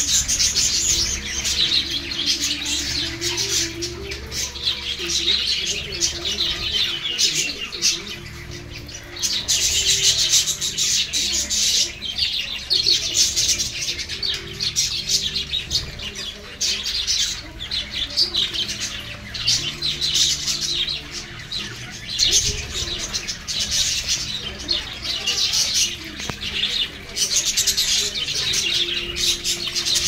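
A flock of budgerigars chattering and warbling together, a continuous mass of quick chirps that swells and eases in waves.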